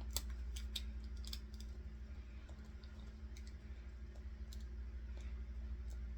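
Scattered light clicks and taps of small hard parts being handled on a tabletop, thickest in the first second and a half and sparser after, over a steady low hum.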